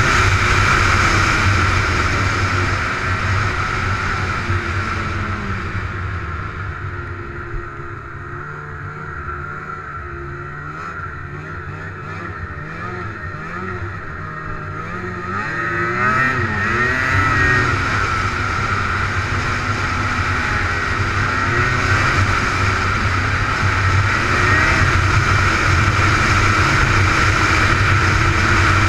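Snowmobile engine running under way. It eases off a few seconds in and runs quieter for several seconds. About halfway through it revs back up, rising in pitch, and holds a steady cruising speed.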